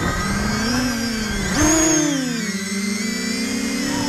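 Quadcopter's Sunnysky X2212 brushless motors spinning 10-inch Gemfan props, heard through the onboard camera, lifting off: a whine of several pitches that slides up and down with the throttle. About one and a half seconds in it surges louder and higher as the quad climbs away.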